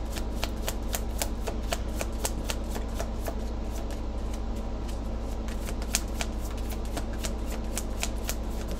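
A deck of tarot cards being shuffled by hand: a steady run of crisp card slaps, about three or four a second, over a low steady hum.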